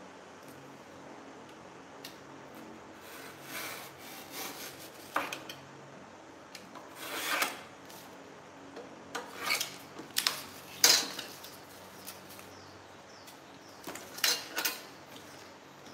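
Scrap cardboard being marked and cut against a metal square: irregular short scraping and rubbing strokes, with a few sharp clicks.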